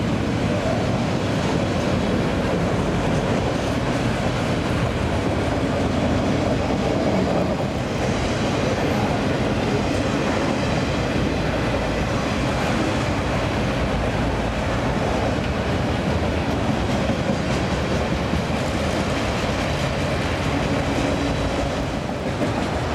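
Freight train of autorack cars rolling past, its steel wheels running steadily over the rails with a continuous clatter.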